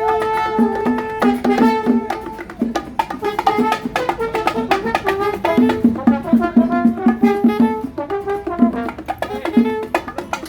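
Salsa band playing: a brass section holds long notes and plays short stabbed phrases over busy hand percussion with sharp, regular clicks.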